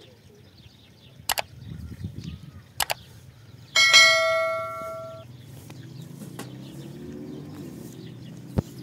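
A single bell-like metallic ring, struck once near the middle and fading over about a second and a half, after two sharp clicks.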